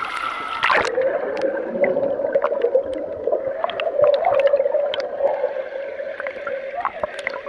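Sound picked up underwater in a crowded swimming pool: a splash as the microphone goes under about a second in, then a muffled steady hum with scattered clicks and bubble pops.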